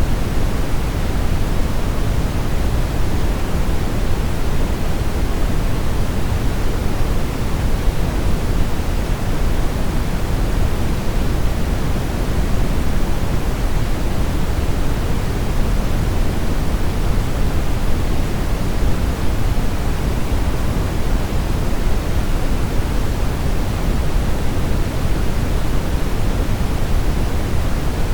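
Steady brown noise: an even, unbroken hiss weighted toward the low end, deep and rumbling with little treble, with no changes or events.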